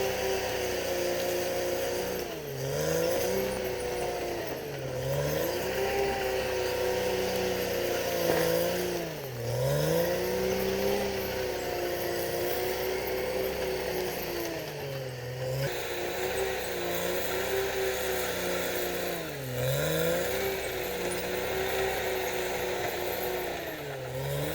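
CAT D6R XL bulldozer's diesel engine running at working revs, its pitch dropping sharply and recovering several times, about every few seconds.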